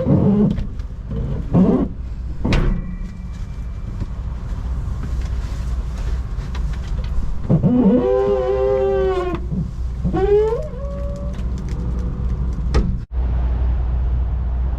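Steady low rumble of idling vehicle engines. A sharp click comes about two and a half seconds in, and two drawn-out, wavering pitched squeals come about eight and ten seconds in.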